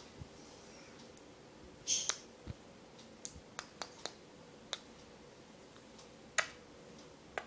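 Faint handling noises from a hand holding and scratching a budgerigar chick: scattered sharp clicks, about ten in all, and a short rustle about two seconds in.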